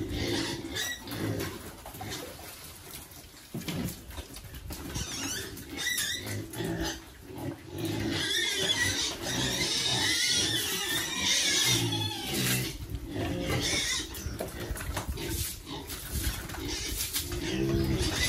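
Pigs grunting repeatedly in short low calls, with a louder, higher-pitched stretch of squealing around the middle.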